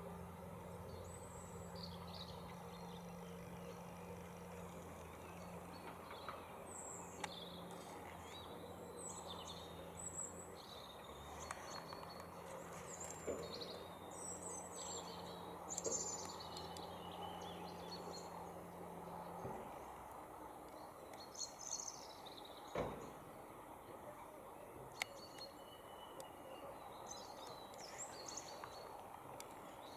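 Small songbirds chirping and singing, many short high calls scattered throughout, over a steady low hum that stops about two-thirds of the way in. A sharp click comes shortly after the hum ends.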